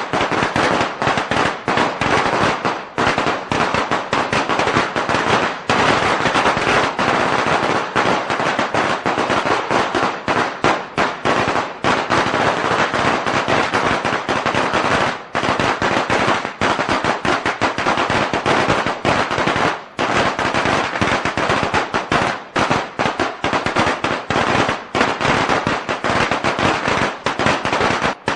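A string of firecrackers going off in a dense, rapid, unbroken run of loud cracks, with a few brief dips in the crackle.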